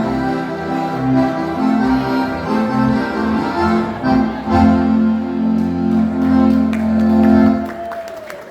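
Live dance music led by a button or piano accordion, closing on a long held chord that stops near the end.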